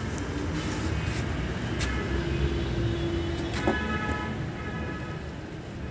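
Steady low rumble of background road traffic, with a faint held tone in the middle and a sharp click about three and a half seconds in as a car door is opened.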